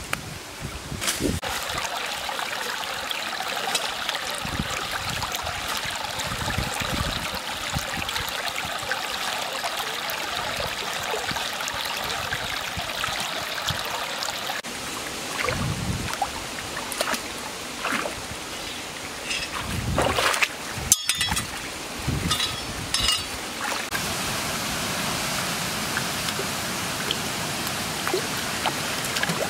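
Shallow stream water running steadily over rocks, with occasional short splashes and knocks as someone wades and reaches into the water.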